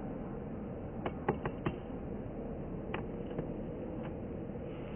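Airbus A350-941's Rolls-Royce Trent XWB engines running at low thrust as the airliner taxis, a steady far-off rumble, with a few sharp clicks about a second in and one near three seconds.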